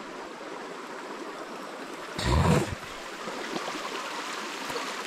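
Shallow river water flowing steadily, with a brief louder rush of noise a little over two seconds in.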